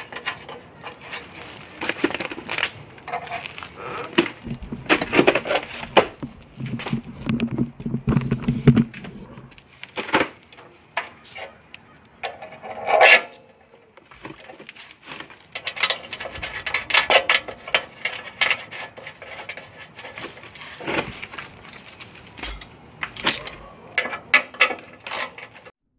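Irregular clinks, taps and scrapes of metal parts being handled as an aluminium radiator mounting bracket is held against the car's steel radiator support and a bolt is driven through it with a hand socket driver. A low hum runs for a few seconds about a quarter of the way in, and a quick run of small clicks comes near the end.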